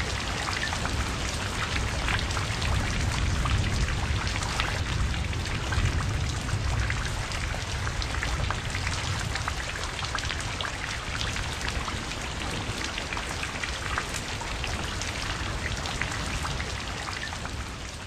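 Steady rain falling, with many separate drop hits, fading out near the end.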